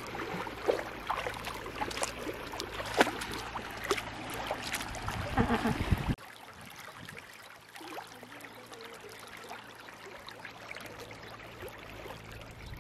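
Shallow stream running over stones, with irregular close splashes and knocks in the water during the first half that stop abruptly about six seconds in, leaving the even sound of flowing water.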